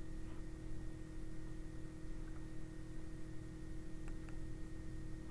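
Steady electrical hum over faint hiss: room tone of a recording setup, with a couple of faint clicks about four seconds in.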